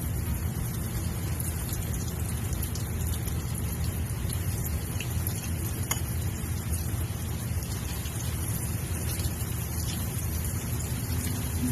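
Breaded chicken tenders deep-frying in hot cooking oil: a steady sizzle with fine crackling pops, over a steady low hum.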